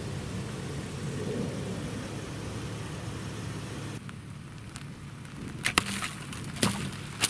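Dodge Challenger running slowly at low revs as its tyre rolls over objects on asphalt. In the last two seconds, a handful of sharp cracks and pops as the front tyre crushes water-filled plastic bottles and bursts them.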